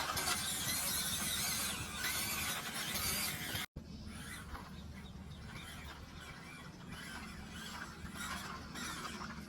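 Small 1/16 RC crawler's electric motor and gearbox whining as it drives. The sound cuts off suddenly about a third of the way in, then carries on quieter with scattered small knocks.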